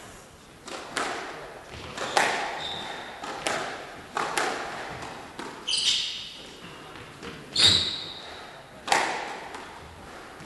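Squash rally: the ball is struck by the rackets and smacks off the walls about once a second, each hit echoing in the hall. Short high squeaks of court shoes on the wooden floor come between hits, the loudest hit and squeak near the end.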